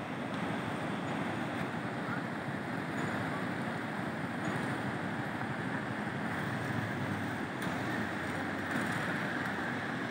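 River water rushing over a rocky bed below, a steady even rushing noise.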